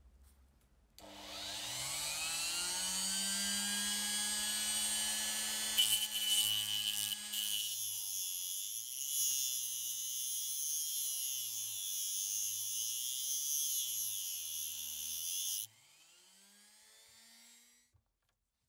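Rotary tool with a small abrasive cut-off disc spinning up with a rising whine about a second in, then grinding into a small threaded metal lighter part with a steady high hiss, and stopping abruptly near the end.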